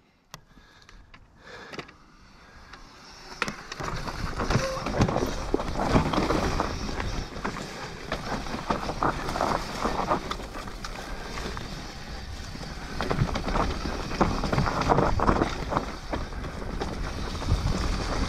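Mountain bike riding down a loose, rocky trail: tyres crunching and skidding over stones, and the bike rattling over bumps. It starts quietly and grows louder about three seconds in.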